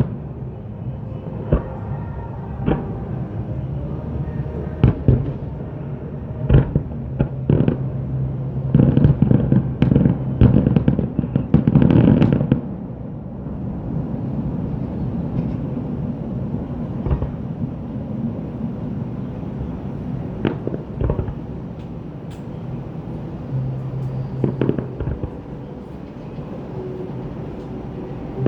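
Aerial fireworks bursting in a display: scattered bangs that build into a dense, rapid run of bursts lasting a few seconds about a third of the way in, then thin out again to single reports.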